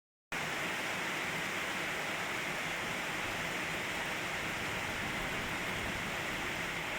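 Rain falling steadily in a rainstorm, an even, unbroken hiss.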